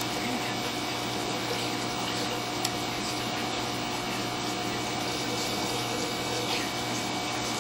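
Aquarium pump running: a steady hum under a constant wash of water noise.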